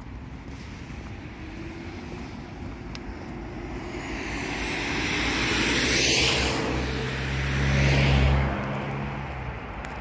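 Road traffic: vehicles driving past on a multi-lane road, the tyre hiss swelling to two loud passes about six and eight seconds in, the second with a low engine hum, then fading.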